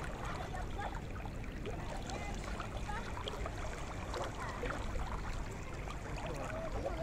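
Shallow river water lapping and trickling close to the microphone, a steady wash with small splashy ticks.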